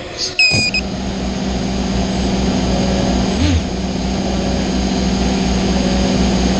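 Racing quadcopter's motors spinning at idle while the drone sits armed on the ground: a steady hum with a pulsing low rumble underneath. A short electronic beep comes about half a second in.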